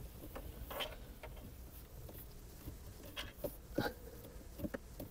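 Faint handling noises of an LED light strip being stretched and pressed along a car dashboard: a few small scattered clicks and rustles.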